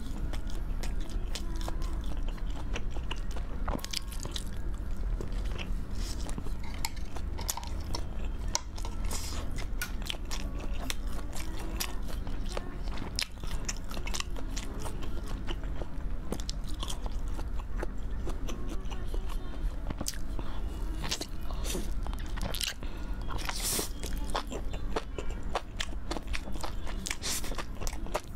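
Close-miked eating sounds: biting and chewing spice-coated grilled skewered food, a run of small wet clicks and crunches over a steady low hum.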